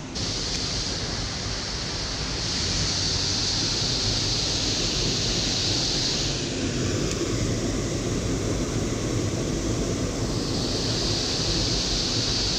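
Loud, steady rush of water pouring over a small concrete spillway into a drain channel.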